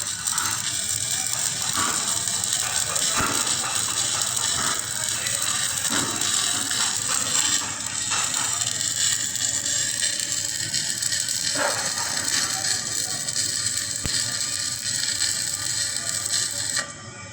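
Electric welding arc crackling and hissing steadily, then cutting off suddenly near the end as the arc is broken.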